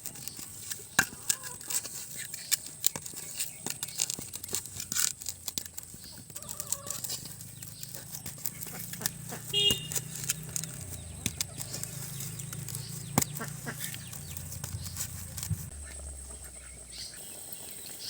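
A spatula stirring and knocking against a cooking pot as salt, cumin and turmeric are mixed into a ridge gourd curry, over a low steady hum. A chicken clucks briefly about ten seconds in.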